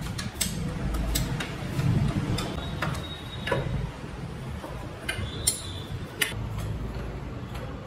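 Steel spanner and handlebar mounting nut of a 1976 Kinetic Luna moped giving irregular sharp metal clicks and clinks as the nut is worked loose and its washer taken off. Two of the clinks, about three and five and a half seconds in, ring briefly.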